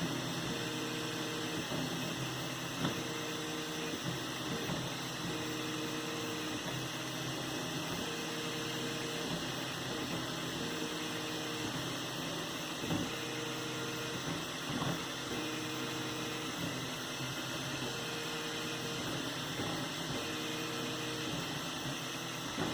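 3D printer running a print: its stepper motors give short humming tones that switch pitch on and off in a repeating pattern every second or two, over a steady mechanical hum, with a few faint clicks.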